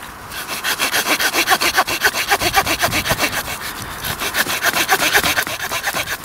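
Small folding saw blade of a Swiss Army pocket knife cutting through a wet branch with quick, even back-and-forth strokes, about five a second, a steady rasping of teeth in wood that starts just after the beginning.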